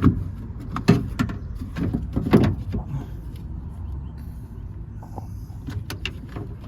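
Sharp knocks and clunks of car door parts and tools being handled, about five in the first three seconds, then a few fainter clicks.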